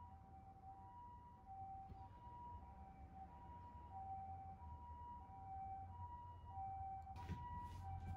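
Faint two-tone ambulance siren, a high and a low note alternating about every half second. A few sharp clicks come near the end.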